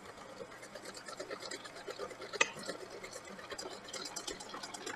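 Wire whisk beating egg yolks and sugar in a stainless steel bowl as warm cream is poured in: a quick, light scraping and ticking of wire on metal, with one sharper click about two and a half seconds in.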